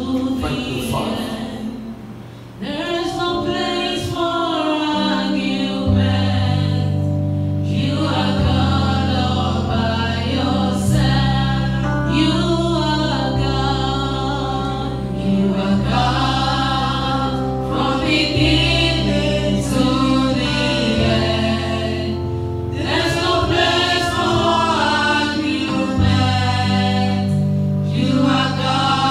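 Gospel music: a choir singing over long held low notes that change every couple of seconds.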